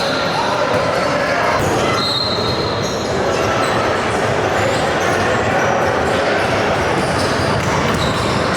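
Live basketball game sound: a ball bouncing on the court over steady crowd voices, with a few short high squeaks.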